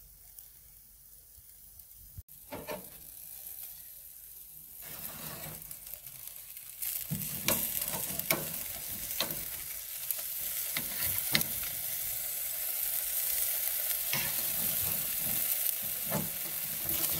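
T-bone steaks sizzling on a charcoal grill grate. The sizzle builds and grows louder about seven seconds in, crossed by short metallic clicks and scrapes of a spatula and tongs against the grate as the steaks are turned.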